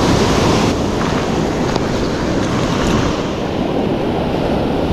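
Steady rush of ocean surf with wind buffeting the microphone.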